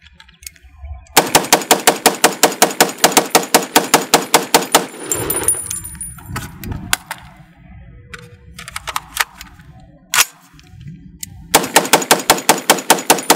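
BN36 Carbine X semi-automatic AR-style rifle in .30-06 fired as fast as the trigger allows, a rapid string of shots at about five a second for several seconds. A pause follows with a few clicks and one sharp clack while the rifle is reloaded, and the rapid fire starts again near the end.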